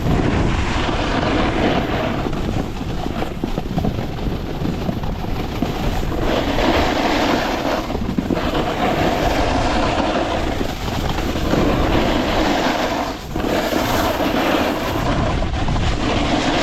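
Snowboard sliding and carving over packed snow, with a continuous scraping rush that swells and eases from turn to turn, mixed with wind buffeting the microphone.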